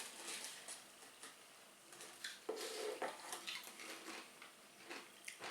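Faint, scattered small clicks and soft rustles of people eating crisps and handling cups at a table, with no speech.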